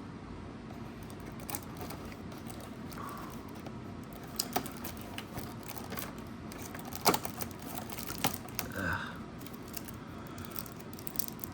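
Scattered light clicks, taps and rustles of a cardboard holiday calendar and a trading card being handled as a promo card is taken out of its compartment.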